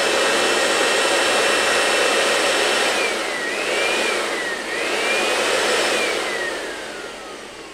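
Small electric air blower running, blowing air up through a funnel's nozzle: a steady rush of air with a high motor whine. The whine dips in pitch twice in the middle, then slides down as the blower winds down near the end.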